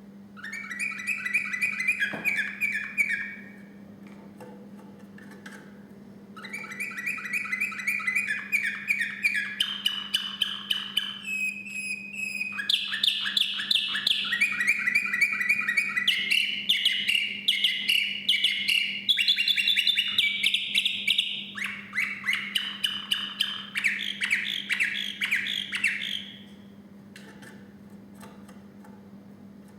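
Song canary singing: a short trilled phrase, a pause of about three seconds, then a long song of some twenty seconds built of rapid repeated trills that jump from one pitch to another. A steady low hum runs underneath.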